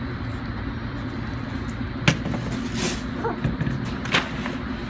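Steady low mechanical hum, with two sharp clicks, about two and four seconds in.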